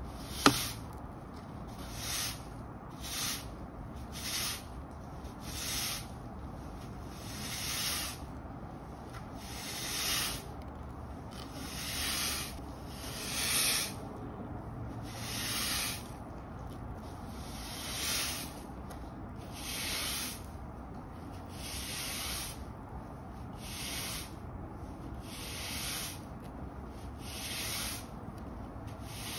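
Stiff-bristle push broom sweeping grit and leaf debris across concrete block paving, in scratchy strokes about every two seconds. A single sharp knock comes about half a second in.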